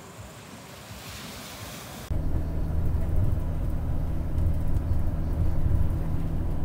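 A faint hiss of surf and wind, then a sudden cut about two seconds in to the steady low rumble of a passenger bus's engine and road noise, heard from inside the cabin.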